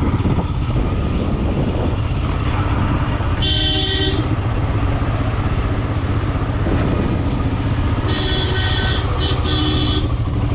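Motorcycle engine running steadily under way with wind rush, and a vehicle horn honking three times: a short blast about three and a half seconds in, then two longer ones near the end.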